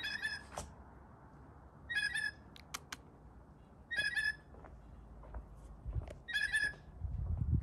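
Blue jay calling from the treetops: four short calls, about two seconds apart, with two sharp clicks between the second and third.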